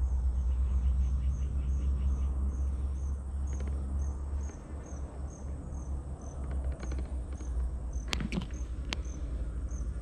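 A swamp insect chirping in short, high-pitched notes, about three a second, over a low steady rumble, with a few sharp clicks near the end.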